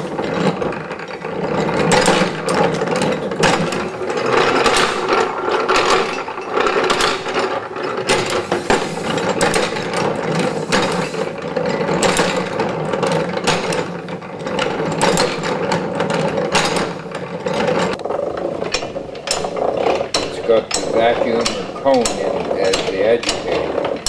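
Antique hand-cranked washing machines being run, their brass gears and mechanism clattering with a continuous, rapid, irregular clicking and rattling.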